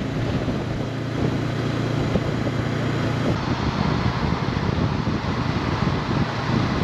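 Honda CB500X parallel-twin motorcycle engine running steadily at cruising speed, mixed with a steady rush of wind and road noise.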